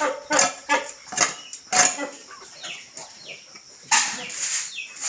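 Sharp metallic clanks and clatter in the first two seconds, then a run of short, high, falling chirps, and another loud clank about four seconds in.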